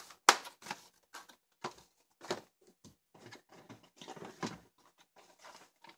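Hard plastic stamp cases and wood-mounted rubber stamps being handled and set down on a table: an irregular string of clacks and knocks with light rustling, the loudest just after the start.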